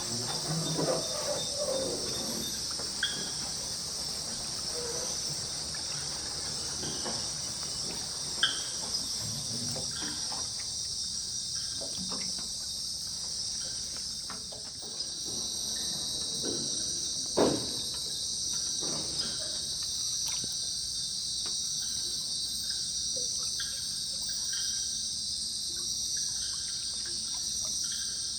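Steady, dense shrill chorus of night insects such as crickets, unbroken throughout. A few short sharp knocks or clicks cut through it, the loudest a little after halfway.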